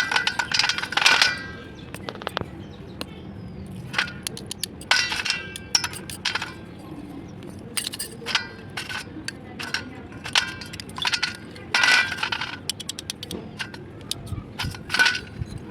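Roasted brown clay pieces crunching and cracking, in bursts of sharp, brittle cracks about once a second or two.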